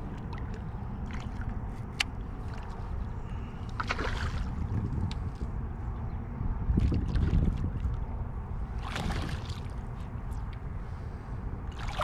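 Lake water lapping and sloshing against a kayak hull over a steady low rumble, with two short splashes about four and nine seconds in and scattered small clicks.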